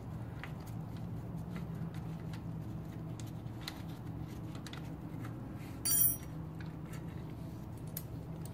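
Light scattered clicks of metal hand tools working on bicycle parts, over a steady low hum. About six seconds in, a brief high-pitched metallic squeak stands out as the loudest sound.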